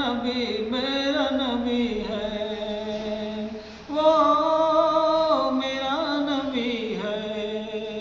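A solo voice sings a naat, an Urdu devotional poem in praise of the Prophet, drawing out long held notes that waver and glide. The voice dips briefly, then a new phrase starts about four seconds in.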